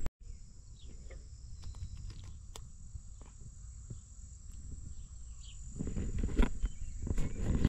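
Steady high-pitched insect drone over a low rumble of wind on the microphone, with a few light clicks; the rumble grows louder near the end.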